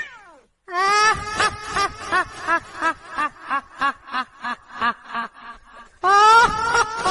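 Horror sound effect of a ghostly laugh: short pitched 'ha' syllables at about three a second, fading over several seconds, then starting again loudly near the end.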